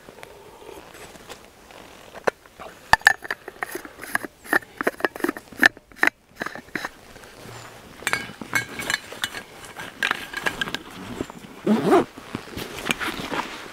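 Footsteps through forest-floor litter, with dry twigs cracking and leaves crunching in irregular bursts.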